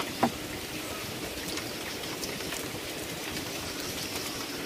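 Steady rain falling on a corrugated metal roof, heard as an even hiss.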